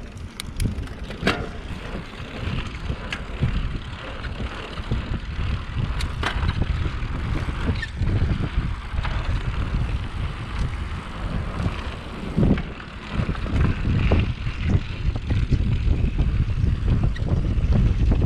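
Wind buffeting the microphone of a GoPro worn by a mountain biker riding fast down a dirt trail, with the hiss and crunch of tyres on dirt and occasional sharp clicks and knocks from the bike. It grows louder in the second half as speed builds.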